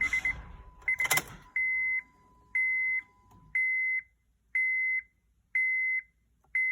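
Honda Odyssey dashboard warning chime with the key on, before cranking: a few rapid beeps and a click, then six evenly spaced beeps of one pitch, about one a second.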